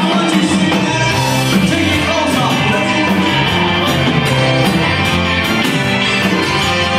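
A live Tex-Mex rock band plays a rock-and-roll number, with drums keeping a steady beat under electric guitars, keyboard and accordion.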